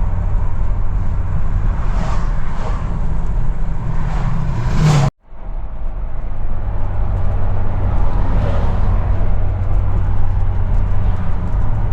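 A car driving along a road: a steady low drone of engine and tyres, heard from inside the cabin. The sound cuts out to silence for a moment about five seconds in, then carries on as before.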